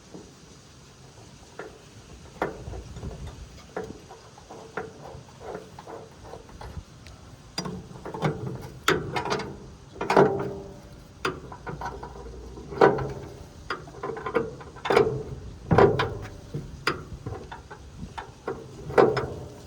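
Irregular metallic clicks and clanks of hand tools working on the Gleaner L2 combine's cylinder adjustment, some strokes ringing briefly; the strikes grow louder and come about once a second after about eight seconds.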